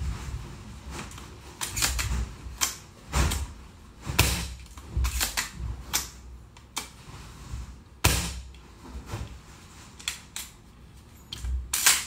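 Bolt-action airsoft sniper rifle being worked by hand: a dozen or so irregular sharp clicks and clacks from its bolt and quick-release spring cylinder, with dull handling knocks. The sharpest snaps come about four and eight seconds in and just before the end.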